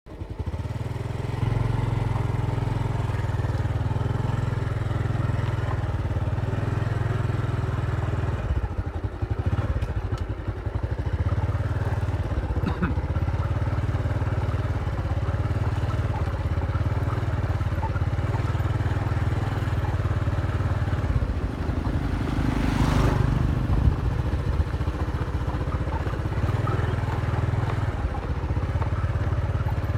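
Motorcycle engine running steadily while riding along a dirt road, with wind buffeting the microphone.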